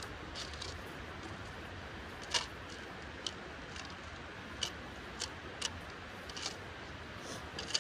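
Faint, scattered clicks and light taps of camping gear being packed into a bag, about eight to ten sharp ticks at irregular spacing, the loudest about two and a half seconds in, over a low steady hiss.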